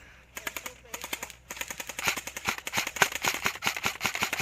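Airsoft electric guns firing rapid automatic bursts, several overlapping. A few scattered shots at first, then a dense, louder stream of fire from about a second and a half in.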